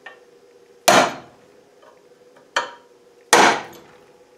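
Hammer striking a transfer punch set through a hole, marking hole centres on the plate below. Three sharp metallic blows, the middle one lighter, each dying away quickly.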